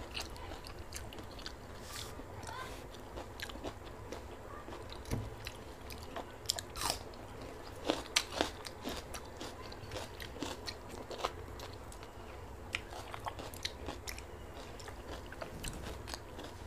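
A person eating close to the microphone: crunchy bites and chewing, with a cluster of louder, sharper crunches about seven to eight seconds in, over a steady low hum.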